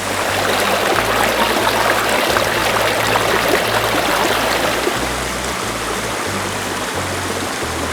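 Stream water rushing steadily, with background music's bass line changing underneath.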